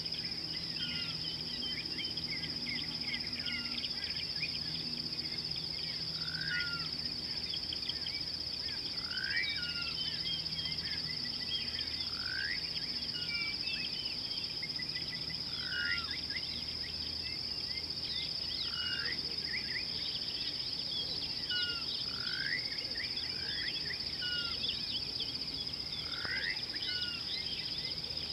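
Outdoor wildlife ambience: a steady high-pitched insect drone under many overlapping bird chirps, with one louder call repeating about every three seconds.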